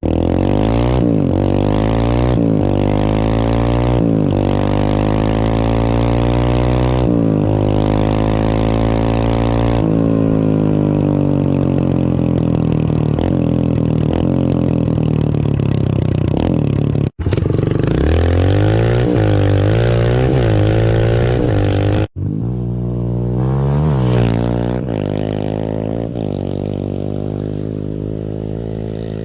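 Kawasaki KLX140L dirt bike's air-cooled four-stroke single-cylinder engine running through an aftermarket FMF exhaust, revved up and down repeatedly in quick blips and a longer slow rise and fall. The sound breaks off abruptly twice and settles lower toward the end.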